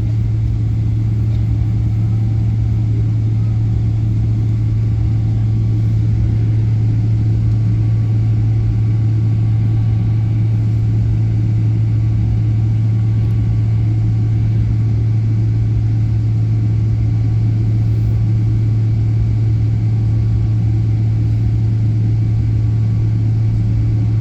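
Jet airliner engine noise heard inside the passenger cabin: a loud, steady low drone that holds without change.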